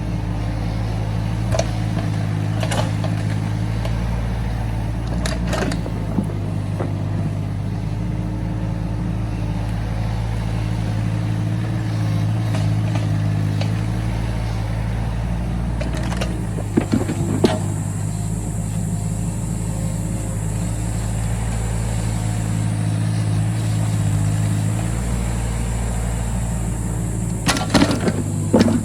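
Excavator's diesel engine running steadily while it digs, with sharp metallic clanks now and then and a cluster of them near the end. A thin high whine is heard for several seconds past the middle.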